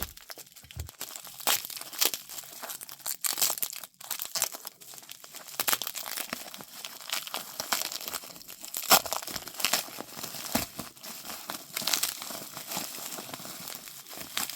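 Packing material around a pocket knife being crinkled, torn and pulled away by hand: an irregular run of sharp crackles and rustles. The knife is being unwrapped from its packaging.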